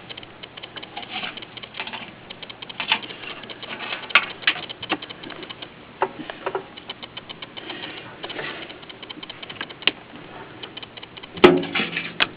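Brush scraping and scrubbing exploded egg remains off the inside of a microwave: an irregular run of short scratches and small knocks, with a louder knock about a second before the end.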